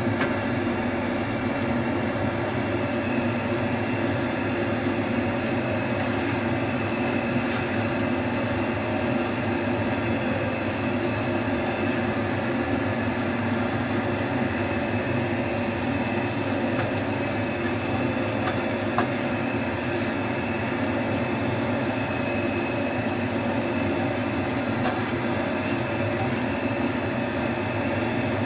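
Sliced onions and tomato frying in sauce in a frying pan, stirred and scraped with a spatula, with a few light clicks. A steady machine whir, like a kitchen exhaust fan, runs under it throughout.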